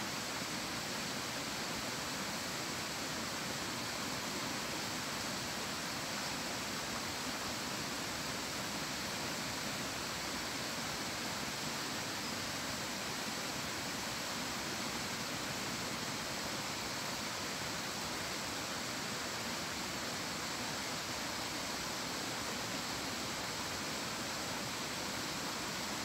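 A stream rushing steadily, an even hiss with no breaks.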